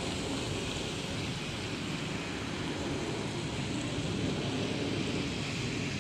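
Steady outdoor street background noise: a constant, even rumble and hiss with no distinct events.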